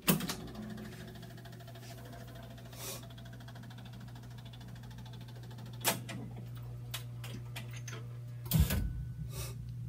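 Jukebox being operated: a selection button clicks, then the record-changer mechanism runs with a steady low hum and a few mechanical clunks, the loudest near the end, as it fetches and loads the chosen record.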